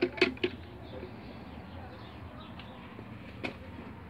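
A few sharp wooden knocks and clicks in the first half second as a hand works the small door of a wooden jewellery cabinet, then one more short click about three and a half seconds in.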